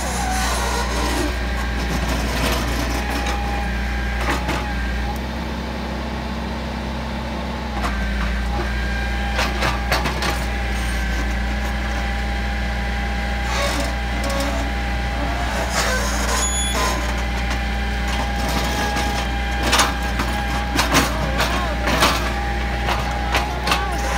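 Hitachi hydraulic excavator's diesel engine running steadily under a constant whine, its note shifting for a few seconds about a quarter of the way in. Sharp knocks and clanks from the boom and bucket working the soil come in the second half.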